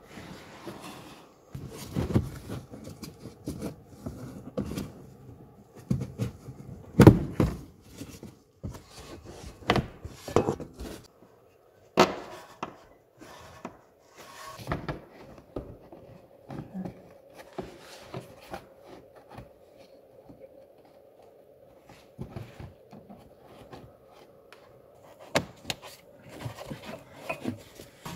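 Hands working a plastic wheel-arch liner and its clips into place: irregular knocks, taps and rubbing, with the sharpest knock about seven seconds in. A faint steady hum runs under the quieter second half.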